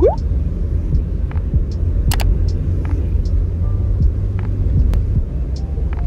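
Steady low rumble of a car being driven, heard from inside the cabin. There is a short rising squeak right at the start and scattered light clicks throughout.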